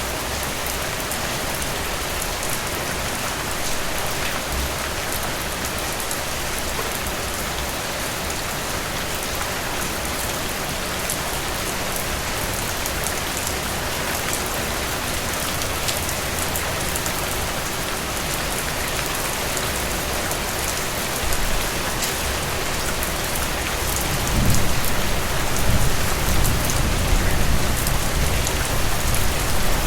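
Heavy rain falling steadily, a dense hiss of many drops. A low rumble swells in over the last few seconds.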